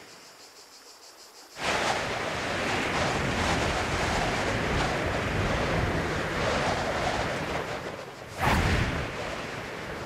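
Rushing river water, a steady wide hiss and roar that comes in suddenly about one and a half seconds in after a quieter stretch. It dips briefly and then surges loudly near the end before settling.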